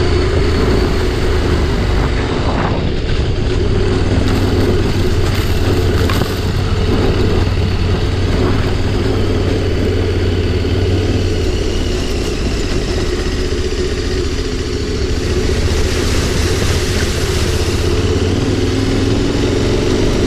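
Adventure motorcycle's engine running steadily at low trail speed while riding a rough dirt forest track.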